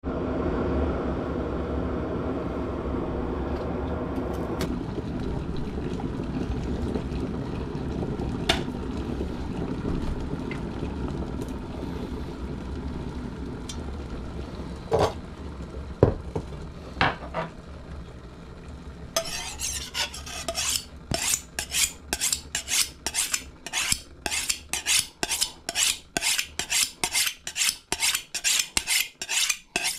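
Chef's knife being honed on a sharpening steel: quick, even metal-on-metal scraping strokes, about three a second, beginning about two-thirds of the way in. Before that, a steady noisy rumble with a few sharp clinks.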